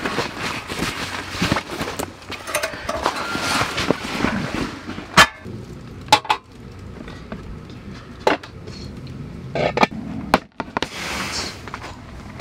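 Zipper and fabric rustling as a padded insulated carry bag is opened and rummaged, then about six separate sharp knocks and clicks as plastic food containers are lifted out and set down on a table.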